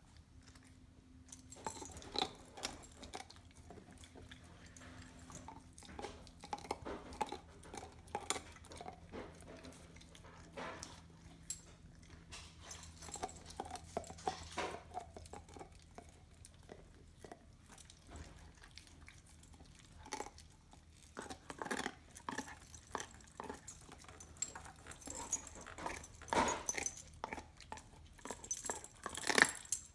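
A dog gnawing a raw marrow bone: irregular scraping, clicking and crunching of teeth on bone. It starts about a second and a half in and grows busiest near the end.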